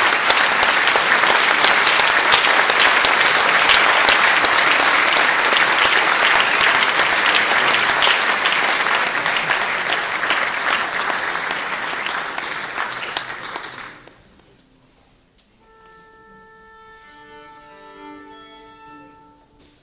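Audience applauding for about fourteen seconds, dying away. Then faint held notes from bowed strings at a few steady pitches, the orchestra and violin soloist tuning before the concerto.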